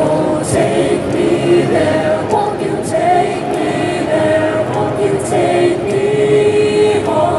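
Mixed-voice high school a cappella choir singing held chords without clear words, through microphones and PA speakers.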